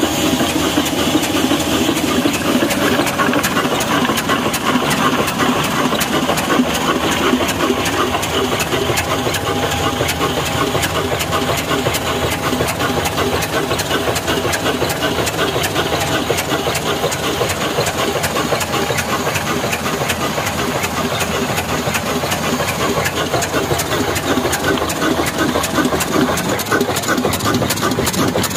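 Old 18 HP black Desi diesel engine running steadily with an even exhaust beat, driving a mini flour mill by flat belt.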